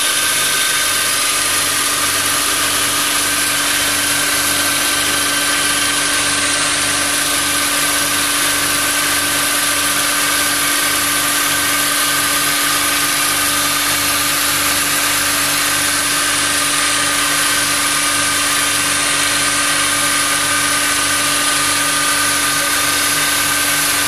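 Transformer oil filtration machine running: a steady machine hum with several constant whining tones, one of them very high-pitched, at an even level throughout.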